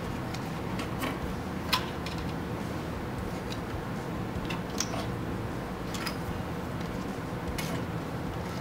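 Scattered light clicks and ticks of small wire connectors and wiring being fed through a chrome motorcycle handlebar, the sharpest just under two seconds in, over a steady low hum.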